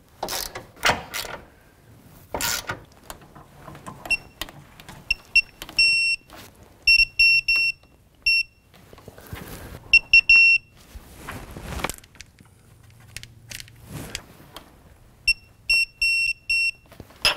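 Electronic torque wrench beeping as the K-member bolts are torqued: bursts of short, high, single-pitched beeps, some held longer, which signal that the set torque is being reached. A few sharp ratchet clicks and knocks come in the first few seconds.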